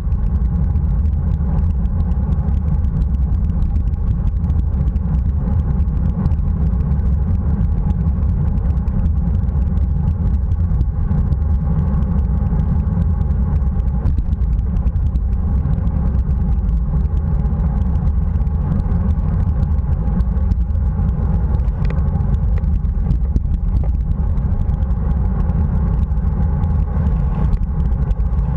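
Steady, loud wind rumble on the microphone of a bike-mounted action camera riding at racing speed in a bunch of road cyclists.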